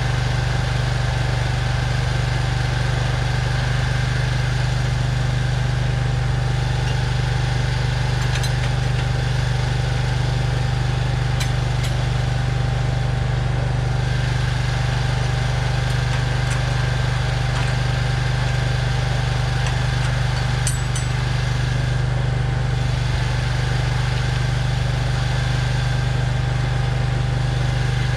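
An engine idling steadily with a constant low hum, with a few faint clicks over it.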